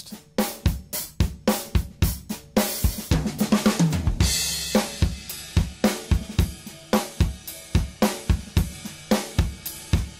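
Recorded drum kit playing a groove of kick, snare and hi-hat, heard through an SSL 4000-style bus compressor plug-in that glues the drum group together. A busier run of hits with a cymbal crash comes a few seconds in.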